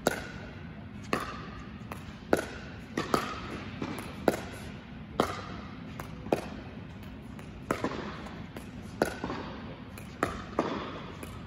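Pickleball paddles striking a hard plastic pickleball back and forth in a soft backhand dink rally: sharp pops roughly once a second, each followed by a brief echo from the large indoor court hall.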